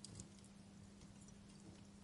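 Campfire crackling quietly, with a few sharp pops of burning wood just after the start and scattered small crackles after, over a faint steady low hum.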